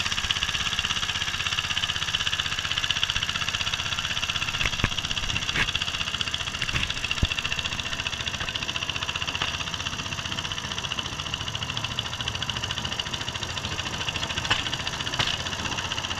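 Small engine of a Cambodian bamboo train (norry) running steadily, driving the bamboo platform along the rails. A few sharp clicks cut through the engine's rapid pulse.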